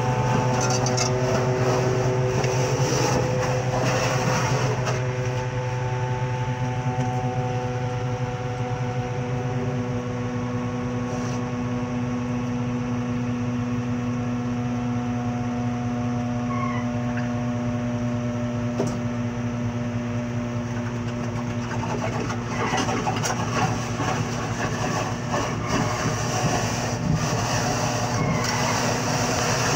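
An engine running steadily nearby, a low even hum with a few overtones that shift slightly in pitch now and then. Scattered clicks and knocks come in over the last several seconds.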